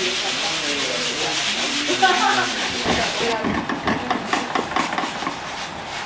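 Paintbrush scrubbing paint into a rough, textured painted surface: a steady, scratchy rubbing. About halfway through it gives way to quieter, irregular light taps and scrapes.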